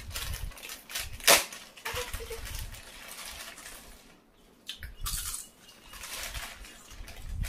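Lay's potato-chip packets crinkling and rustling as they are torn open and chips are pulled out, with a sharp snap about a second in, and chips crunching as they are eaten.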